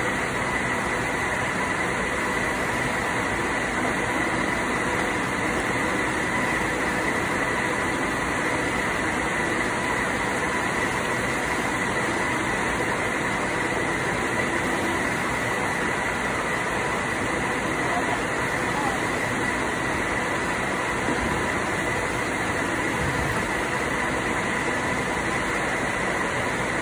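Steady machinery noise with a constant high whine, unchanging in pitch and level.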